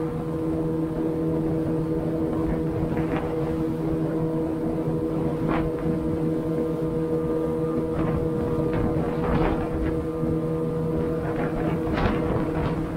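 Outboard motor running at a steady speed, pushing an aluminium boat along at a cruise, with an even hum that does not change pitch. Wind noise on the microphone and a few brief swishes come every few seconds.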